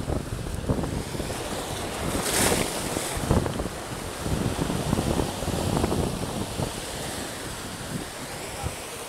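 Surf breaking and washing over rocks, with wind buffeting the microphone. There is a louder, hissing wash about two and a half seconds in.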